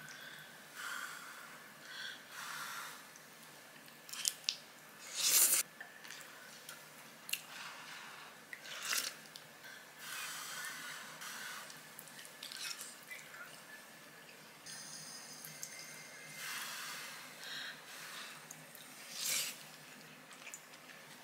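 A person eating rice-noodle soup with beef: irregular slurps of noodles and broth and chewing, with a few sharp utensil clicks against the bowl, the loudest about five seconds in.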